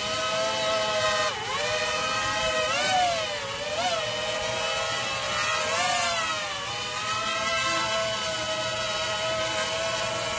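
Eachine Wizard-frame quadcopter's brushless motors and propellers whining in a low hover. The pitch dips sharply about a second in and swells up and down a few times as the throttle corrects, then holds steady.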